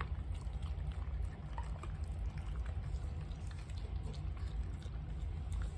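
Small dogs licking and lapping wet food and broth from a spoon and bowls, a run of faint wet ticks and smacks over a steady low hum.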